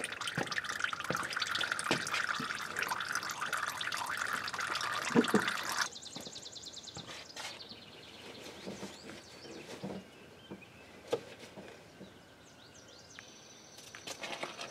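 Gear oil overflowing from a front differential's level hole in a thin stream into a catch pan: a steady trickle that stops abruptly about six seconds in, followed by scattered faint drips. The overflow is the sign that the differential is full.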